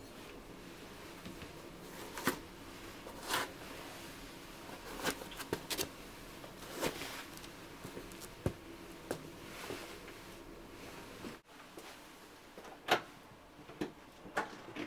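Shoes scuffing and tapping on a hard entryway floor as they are put on and stepped into, with clothing rustling in between. A few sharper knocks and clicks near the end.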